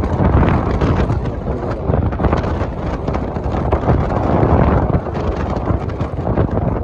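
Wind buffeting the microphone: a loud, continuous low rumble with crackling gusts.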